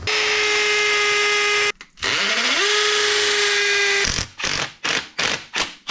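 Power drill motor running steadily at full speed, stopping, then spinning back up with a rising whine and running again, followed by about half a dozen short trigger bursts near the end.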